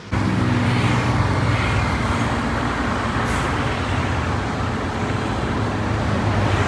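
Diesel engine of a front-engined Hino AK240 bus running steadily at idle, a low even hum, with a brief hiss about three seconds in.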